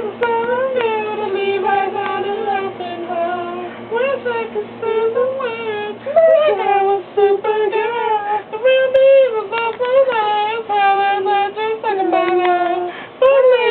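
A high-pitched voice singing a melody line after line with short breaks between phrases, over a faint steady low hum.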